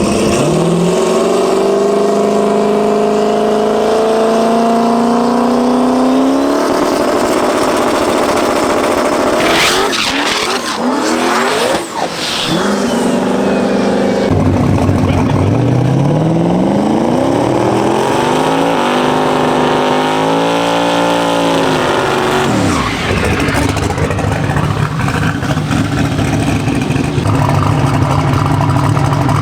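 Race car engine running hard, its pitch climbing again and again as it revs up, with a stretch of tyre squeal and noise a third of the way in and a falling drop in revs later on.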